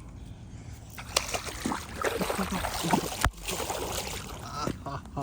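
Water sloshing and splashing, with scattered knocks and clicks, louder from about a second in.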